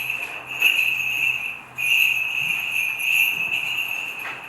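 Small bells on a swung Byzantine censer jingling in continuous pulses, with a brief lull about a second and a half in.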